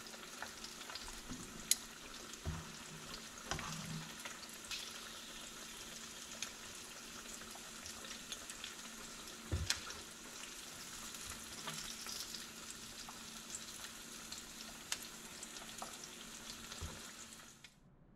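Coconut-breaded shrimp frying in hot oil in a pan: a steady sizzle and crackle, with a few sharp clicks as metal tongs turn the shrimp and lift them out. The sizzle cuts off suddenly near the end.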